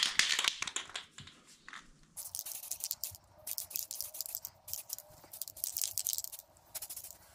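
Aerosol rattle can of tan spray paint spraying in many short, irregular bursts of hiss from about two seconds in. A brief loud clatter comes at the very start.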